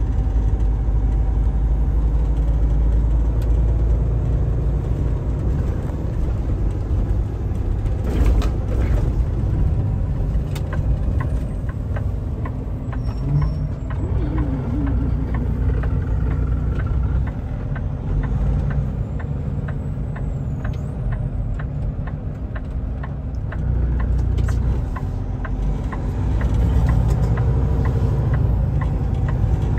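Semi truck's diesel engine and road noise heard inside the cab while driving, a steady low rumble. A short hiss comes about eight seconds in, and a regular ticking runs through the middle stretch.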